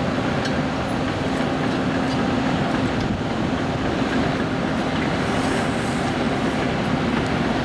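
John Deere 710L backhoe loader's diesel engine running steadily under load while it digs, with a low steady hum.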